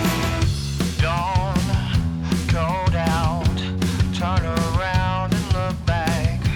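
Rock-style background music with a steady drum beat and a wavering lead melody line.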